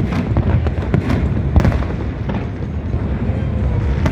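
Fireworks going off in a dense, continuous rumble of bursts, with sharper cracks standing out every half second or so.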